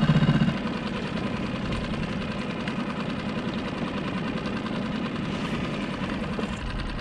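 Mercury 6 hp outboard motor running steadily with a fast even beat, pushing the skiff along.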